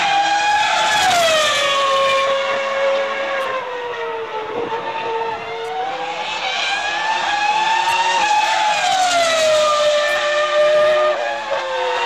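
Formula 1 V10 engine running at high revs. Its high-pitched note drops about a second in, stays low for a few seconds, climbs again past the midpoint, then drops and starts to rise once more near the end.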